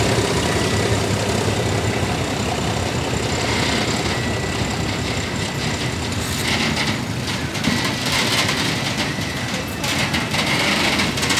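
Freight train of tank wagons rolling past, with motorbike engines idling and a thin high tone over the noise.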